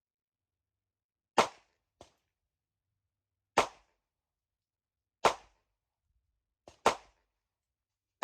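Four handgun shots fired at a slow, steady pace, about one every one and a half to two seconds, with a few fainter, sharper reports in between.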